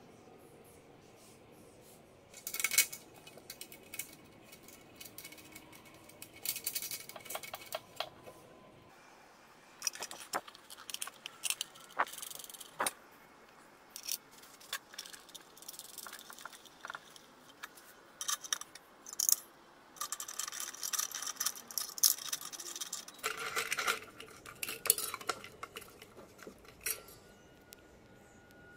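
Small metal screws and fittings clicking, clinking and scraping against a metal frying pan as they are handled and fitted into holes in its base. These come as irregular clicks and short rattles, with longer stretches of scraping about a third of the way in and again past two thirds.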